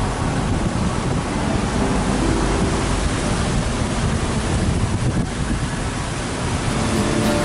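Wind buffeting the camera's microphone: a steady, fairly loud rushing rumble.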